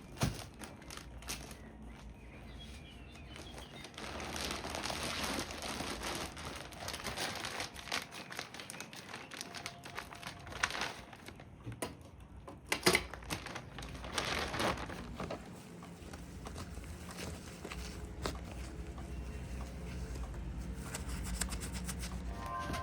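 Rustling and crinkling handling noises, with a few sharp clicks and knocks.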